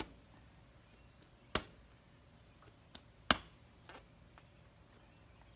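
Two sharp clicks, the second louder, with a few faint ticks between, as a Mustang passenger seat is pushed down onto its mount on a Yamaha V-Star 950's rear fender, a tight fit.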